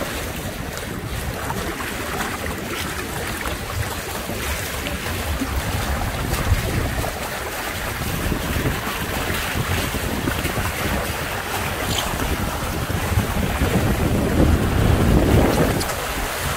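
Wind buffeting the microphone aboard a sailing Hobie Cat catamaran, with water rushing past the hulls; the gusts grow stronger near the end.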